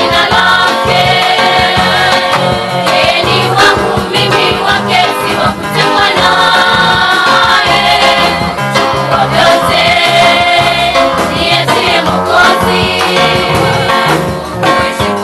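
Choir of schoolgirls singing a gospel song together, over a steady low bass line that moves note by note.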